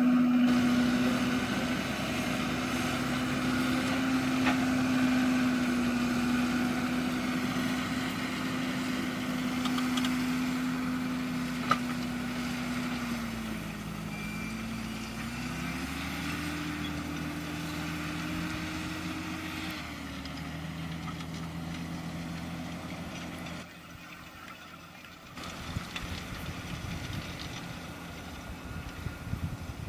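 John Deere 6210R tractor's six-cylinder diesel engine running under load as it pulls a Lemken six-furrow plough. Its pitch dips briefly about halfway through, rises, then settles lower, and the sound slowly fades.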